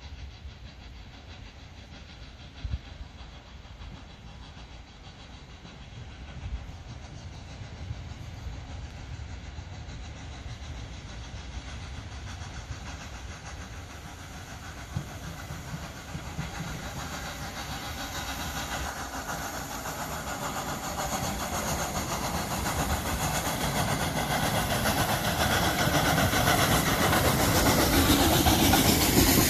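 Ol49 steam locomotive pulling away with a passenger train, its working exhaust and hissing steam growing steadily louder as it approaches and passes close by.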